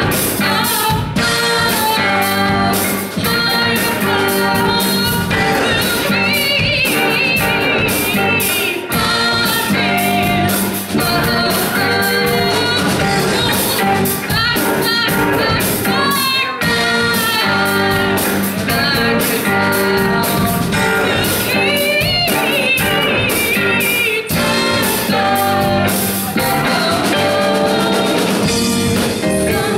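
Live rock band playing: a woman singing lead over electric guitar, bass guitar and drum kit.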